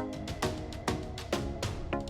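Background music with a steady beat of about two strokes a second over pitched instrumental notes.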